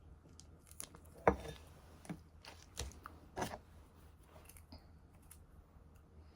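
A few short clicks and knocks of utensils and tableware during a meal, the loudest a sharp knock a little over a second in, then three or four softer ones.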